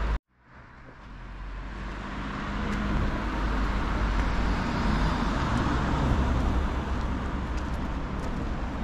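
Road traffic noise: a steady hum of passing cars with a low rumble. It fades in over about two seconds after a brief moment of silence at the start.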